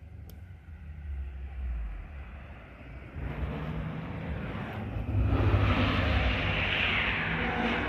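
Rally car engine approaching at speed, growing steadily louder and becoming loud from about five seconds in.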